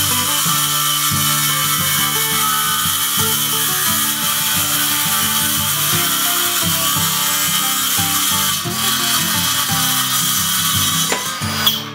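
Handheld circular saw cutting through a wooden board, a steady high-pitched whine with the hiss of the blade in the wood, ending shortly before the close. Background music with stepped low notes plays underneath.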